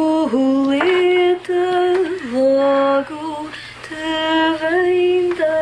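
A woman singing a slow lullaby unaccompanied to calm a baby in her arms: long held notes stepping up and down, with short pauses for breath between phrases.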